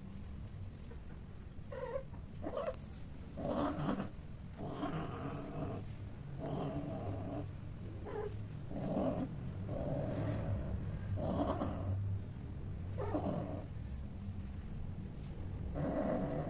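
Domestic cats mating: a cat yowls in a long series of short, low, drawn-out calls, about one a second, the caterwauling of a mating pair.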